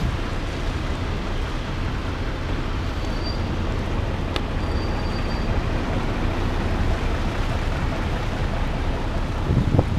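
Steady city street noise on a rainy night: traffic and rain on wet pavement, with a heavy low rumble on the microphone.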